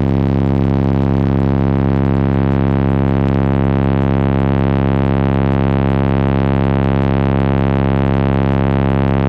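Four Concrete Audio C3 15-inch car subwoofers playing a steady bass test tone from a tone generator: one loud, buzzy, unwavering tone with many overtones, held throughout.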